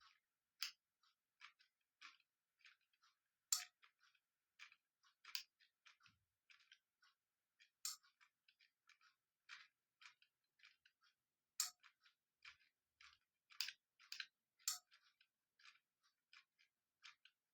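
Faint, irregularly spaced clicks, a few sharper ones among many soft ones: a bird clock being handled and its buttons worked while its settings are tried out.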